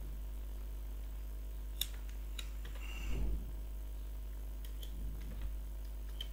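Faint, sparse clicks of computer keyboard keys as a name is typed, over a steady low electrical hum, with one brief soft sound about three seconds in.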